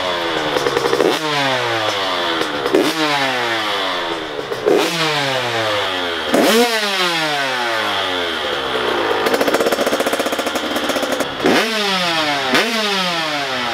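Dirt bike engine revved over and over: each throttle blip jumps the pitch up, then the revs fall away over a second or so, about every one to two seconds. A short stretch of rattling comes about two-thirds of the way through.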